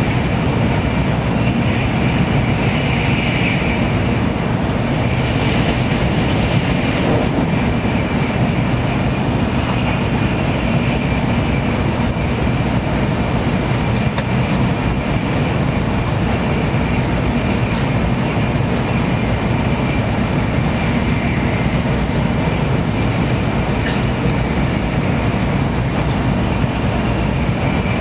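Shinkansen bullet train running at speed, heard inside the passenger cabin: a steady rumble with a constant high hum over it.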